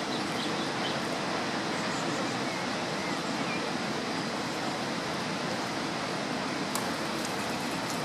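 Steady rushing roar of a waterfall, an even noise without breaks.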